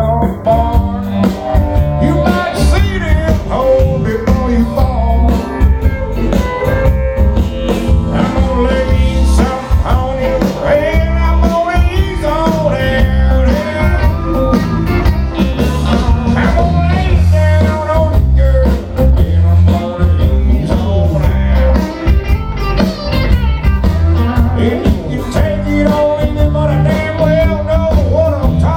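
Live country band playing loudly: electric guitars over bass and a regular drum beat.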